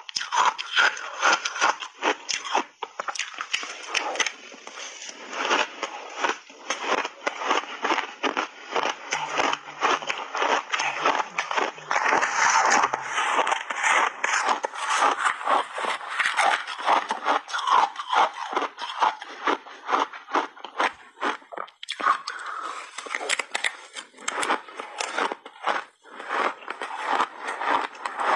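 Frozen shaved ice crunched between the teeth close to a clip-on microphone, a dense, unbroken run of sharp crunches, with a metal spoon scraping through the ice in the bowl.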